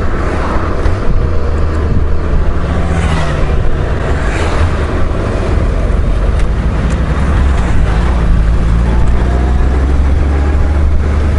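Honda Gold Wing GL1500 motorcycle riding along at road speed: a steady, heavy low drone of its flat-six engine mixed with rushing wind noise on the microphone.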